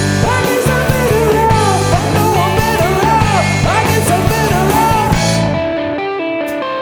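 Live rock band playing with drums, bass and electric guitar, a lead line bending up and down over the top. About five seconds in the band drops out, leaving a guitar picking single notes.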